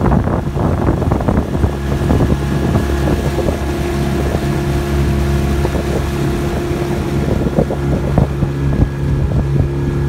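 Outboard motor running steadily at speed, pushing a small fishing boat across choppy water, with a steady engine hum and wind buffeting the microphone.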